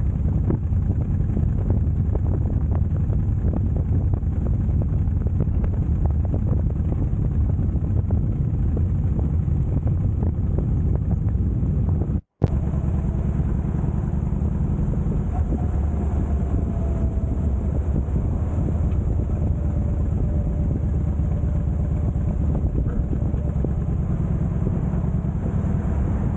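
Harley-Davidson Heritage Softail Classic V-twin motorcycle running steadily on the road, a dense low rumble mixed with wind buffeting on the microphone. The sound cuts out for an instant about halfway through.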